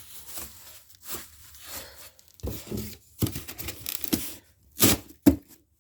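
Cardboard box packaging being handled and rustled, in short scrapes and crinkles, with two sharp knocks close together near the end.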